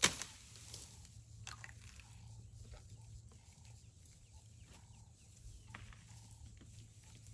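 African elephant browsing on a tree: a sharp crack of a branch snapping right at the start, then scattered smaller snaps, crunching and rustling of twigs and leaves as it strips and chews them.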